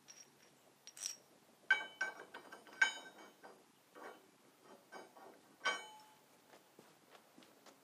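Metal hand tool clinking against the steel frame of a three-bottom plow: a handful of sharp, ringing clinks with softer taps between, the loudest a little under two seconds in, near three seconds and near six seconds.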